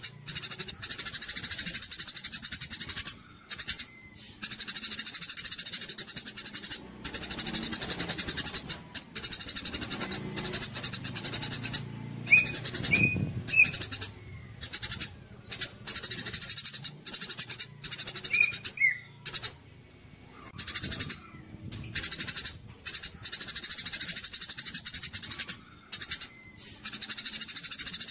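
Songbird singing a rapid, high-pitched chattering song in long runs broken by brief pauses, with a few short, lower whistled notes in the middle.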